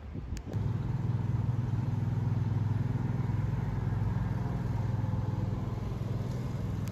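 A motor vehicle's engine running steadily close by, a low even pulsing that starts suddenly about half a second in and cuts off at the end.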